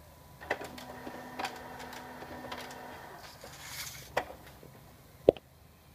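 HP Color LaserJet Pro MFP M176n laser printer printing and ejecting a supplies status page: its mechanism runs with a steady hum and several clicks, then a short hiss as the sheet comes out, and a sharp click near the end.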